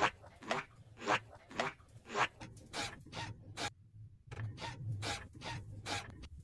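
Rhythmic scraping strokes, about two a second, with a short pause about four seconds in.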